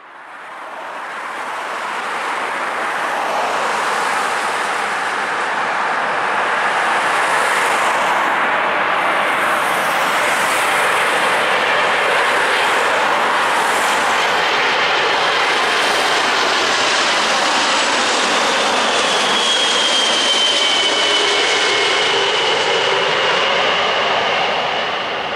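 Jet noise of a British Airways Boeing 747-400's four Rolls-Royce RB211 turbofans on landing approach: a steady rushing roar that fades in over the first couple of seconds. About two-thirds of the way through, a high fan whine, falling slightly in pitch, rises above it.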